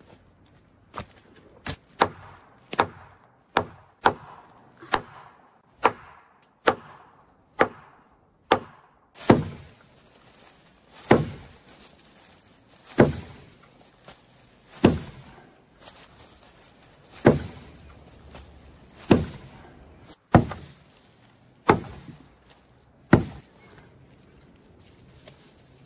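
Wood being chopped with a hand tool: lighter strikes about once a second, then from about nine seconds in heavier blows about every two seconds.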